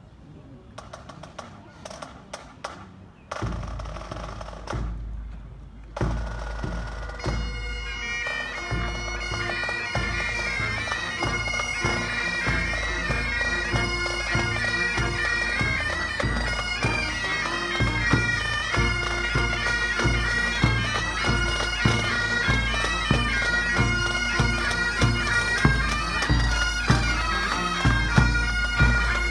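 A pipe band strikes up: after a few sharp clicks, the bagpipe drones come in about three seconds in and the chanters take up the melody a few seconds later. The band then plays a march, with drums beating steadily.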